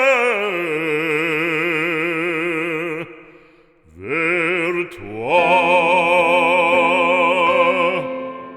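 Operatic singing: a voice holds a long note with wide vibrato for about three seconds, drops away, then slides up into a second long held note that ends near the end.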